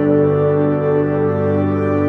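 Slow ambient background music of long held chords, with a warm horn-like or organ-like timbre.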